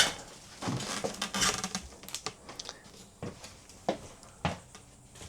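Scattered light knocks and clicks at an irregular pace, like loose objects being handled and set down.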